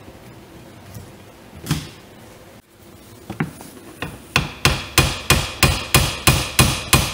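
Light hammer strikes on a VW Golf Mk4 wiper-arm stud, meant to shock loose a wiper arm bound to it by corrosion. A couple of scattered knocks come first, then about four seconds in a steady run of sharp taps, about three a second, each with a short metallic ring.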